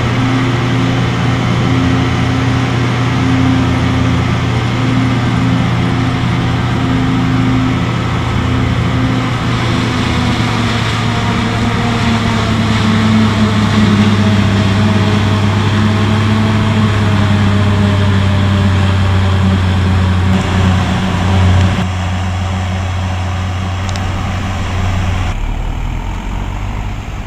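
Heavy diesel farm machinery of a maize chopping harvest running steadily, with the engine note rising a little partway through. The sound drops abruptly twice near the end.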